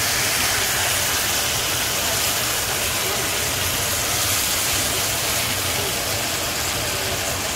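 Pork chops searing in hot oil in a frying pan, a steady, even sizzle.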